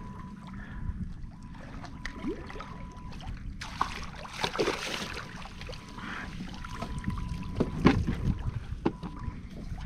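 Knocks and handling noises on a kayak, with water splashing as a fish is brought aboard and wind on the microphone. The loudest knocks fall about four to five seconds in and again near eight seconds.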